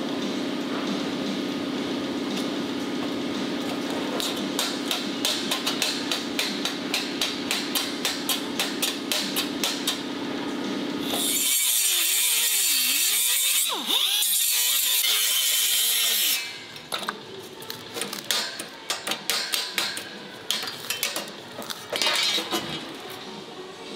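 A steady hum with regular ticking, about two or three a second, for the first half. Then a pneumatic cut-off tool grinds into the sheet-steel grille shell with a loud, harsh hiss for about five seconds, throwing sparks. Then it stops, followed by scattered knocks and clatter of metal and tools being handled.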